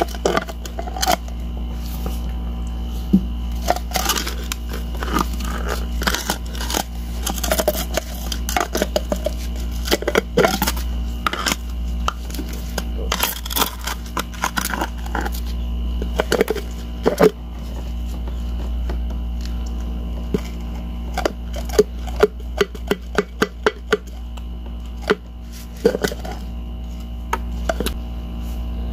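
Thin hollow ice shell frozen in a balloon, crackling and snapping as gloved fingers press and break it: scattered sharp cracks, with a quick run of them about three-quarters of the way in. A steady low hum runs underneath.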